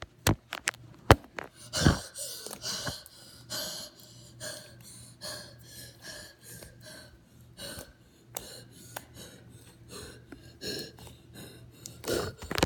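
Loud, wheezy breathing close to the microphone, a run of short breaths repeating every half second or so, with a few sharp clicks in the first two seconds.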